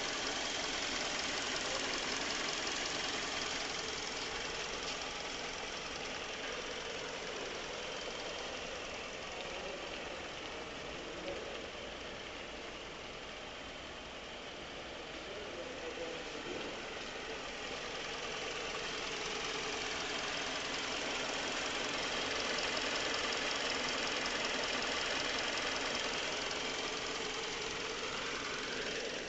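Hyundai Sonata car engine running steadily at idle, its level rising and falling gently over the stretch.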